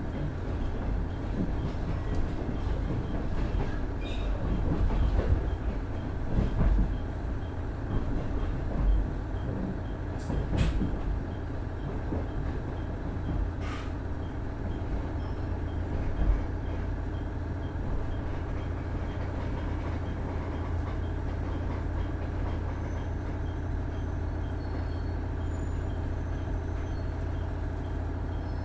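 KiHa 110 diesel railcar running, heard from on board: its Cummins DMF14HZA diesel engine drones steadily under wheel and rail noise. There are several jolts and knocks in the first half, and it runs more evenly after that.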